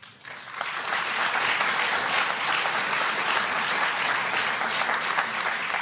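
Large audience applauding, building up within the first second and then holding steady.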